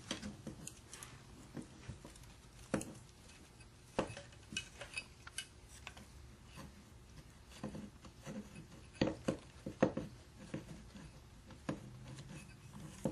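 Irregular metal clinks and knocks as the end bell of a Franklin 3/4 hp electric motor is worked off its housing and handled, with a cluster of sharper knocks about nine to ten seconds in.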